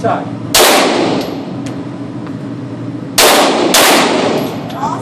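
Three single 9mm pistol shots from a Glock 17: one about half a second in, then a quick pair about half a second apart around three seconds in. Each shot is followed by a short echo off the range walls, and fainter ticks can be heard between the shots.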